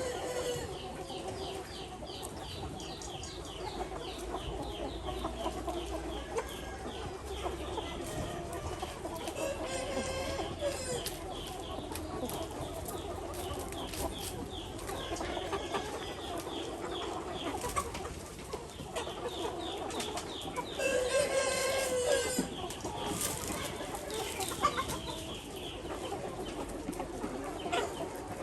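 Free-range Ho chickens clucking and calling. A rooster crows loudly about two-thirds of the way in.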